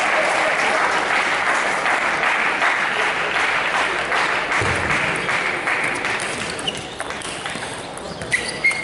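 Audience applauding, dying away over the first half; near the end, a few sharp clicks of a table tennis ball striking bat and table as play resumes.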